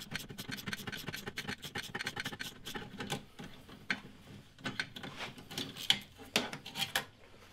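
A quick run of small metallic clicks from a hand tool undoing the 10 mm bolts that hold a car's bonnet lock. After about three seconds it thins out to scattered metal clinks as the lock and bolts are handled.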